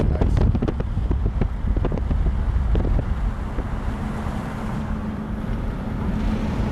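Inside a moving car: a steady low rumble of engine and road noise, with wind on the microphone and a few light clicks in the first half.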